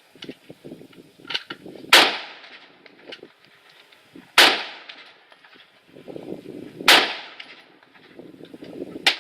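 Four loud gunshots from a firearm, fired at an even pace about two and a half seconds apart, each with a short echoing tail, with fainter cracks in between.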